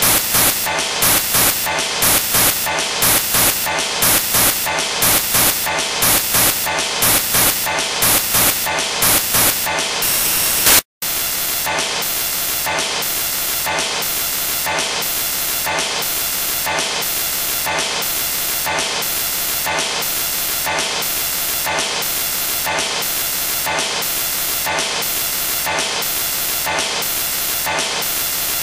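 Loud static hiss that pulses about twice a second, cuts out briefly about eleven seconds in, then carries on as a steadier hiss.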